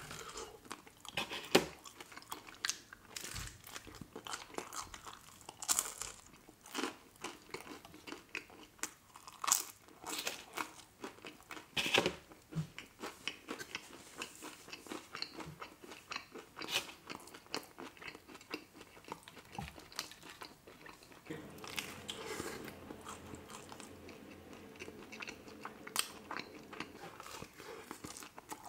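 Close-miked biting and chewing of pepperoni pizza: a run of irregular sharp mouth clicks and smacks, the loudest about two, six, ten and twelve seconds in.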